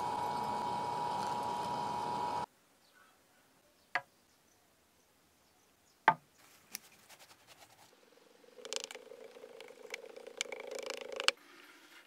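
A charcoal furnace melting brass gives a steady hiss with a high, level hum, which cuts off about two seconds in. Then come two sharp knocks on a wooden moulding box. Later there are about three seconds of rustling and scraping, with small clicks, as sand is worked into the box.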